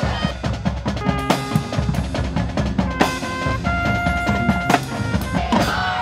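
High school pep band playing, with drums and bass drum keeping a driving beat and a drum roll. Horns hold a few long notes, the longest around the middle.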